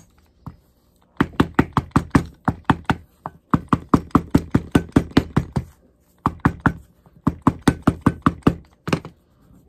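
Cobbler's round-faced hammer striking a stitched leather piece laid on a steel stand. Quick repeated knocks come about four a second, in several runs broken by short pauses, with a last single blow near the end.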